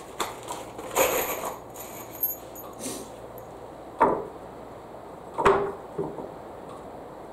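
Wooden support blocks being handled and set against a wooden frame on a concrete floor: a scatter of knocks and clatter, with two sharp wood knocks, the loudest, about four and five and a half seconds in.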